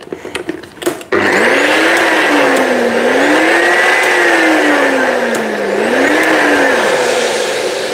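Nutribullet bullet blender set onto its base with a couple of clicks, then its motor starts about a second in and runs steadily, with a whine that rises and falls in pitch as the load shifts, stopping near the end.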